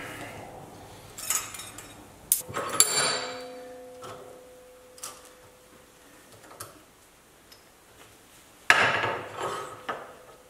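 A steel sheet-metal patch panel clamped in a bench vise being worked with a ball-peen hammer: scattered metallic knocks and clanks. One about three seconds in leaves the metal ringing for several seconds, and a loud blow comes near the end.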